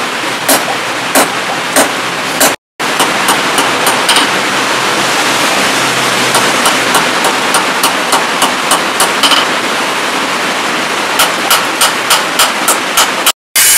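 Hand hammer striking a red-hot steel blade on a post anvil. The blows come about one every half second at first, then in quicker runs of lighter taps. A steady rushing noise runs underneath, and the sound cuts out for a moment twice.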